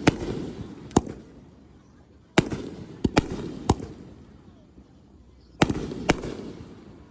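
Aerial fireworks shells bursting: about eight sharp booms in three quick clusters, each trailing off in a rolling rumble.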